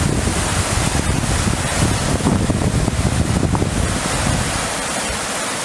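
Flooded creek rushing, a steady roar of fast muddy floodwater, with wind buffeting the microphone that eases about four and a half seconds in.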